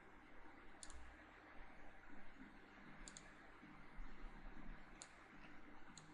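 Computer mouse clicks: a quick double click about a second in, another pair about three seconds in, then single clicks about five and six seconds in, faint over low room hum.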